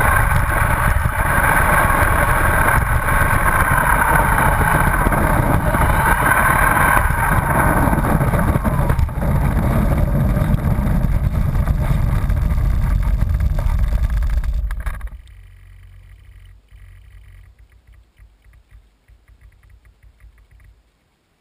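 Radio-controlled Trojan T-28 model airplane's motor and propeller running steadily, close up from a camera on the plane, as it rolls along the asphalt runway. The motor cuts off suddenly about 15 seconds in, leaving only faint rattles and ticks as the plane comes to a stop.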